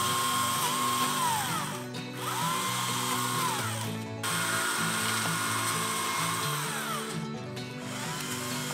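Chainsaw cutting mimosa trunks, held at high revs and then dropping off, in several short runs that cut off abruptly, over background music with a steady low melodic line.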